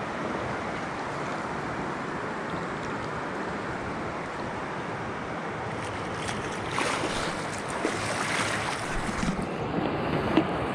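River water rushing steadily around an inflatable boat on the current, with irregular splashing and lapping that grows a little louder about six seconds in.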